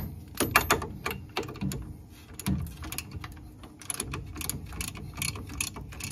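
Ratchet wrench clicking in short, irregular runs while undoing the nut on a front sway bar end link.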